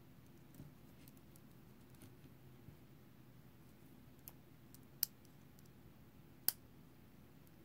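Stainless steel watch bracelet and its fold-over clasp being handled, giving faint metallic clicks and link rattles. Two sharp clicks stand out, about five seconds in and again a second and a half later, as the clasp is pressed and snaps shut.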